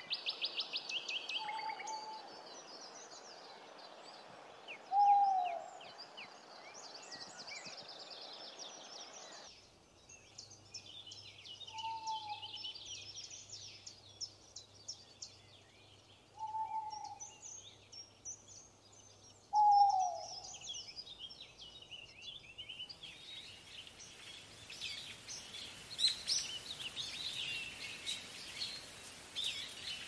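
An owl giving short single hoots, each falling slightly in pitch, five spread over the first twenty seconds. Small songbirds chirp throughout.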